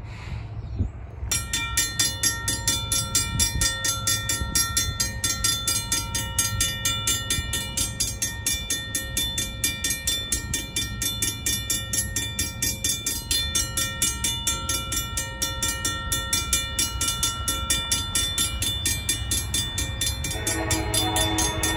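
Safetran hybrid crossing bell ringing in rapid, even strikes, starting about a second in, over a steady low rumble. Near the end an approaching train's horn begins to sound, joining the bell.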